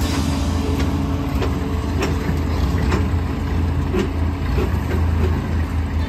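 Rough-terrain forklift engine running steadily under load as it drives up and places a stack of straw bales on a flatbed trailer, with several short knocks about a second apart.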